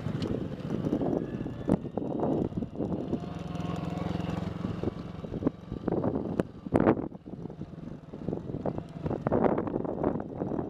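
Honda Super Cub's small single-cylinder four-stroke engine running at low speed, its note rising and falling, with scattered sharp knocks through the ride.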